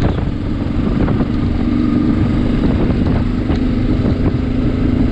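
Motorcycle engine running steadily at cruising speed, heard from the bike itself, under a heavy, even wind rumble on the microphone.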